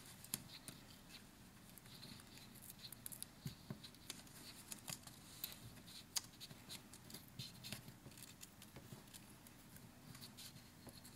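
Faint small clicks and crinkles of adhesive copper foil tape being peeled, folded and pressed down onto a paper card.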